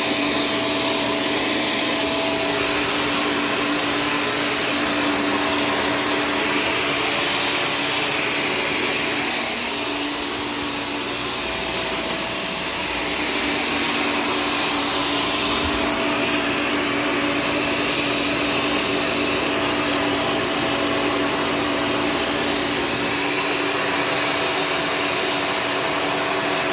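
Shark Stratos vacuum cleaner running steadily: a continuous motor hum with a high whine over the rush of air. It dips slightly in loudness for a few seconds about ten seconds in.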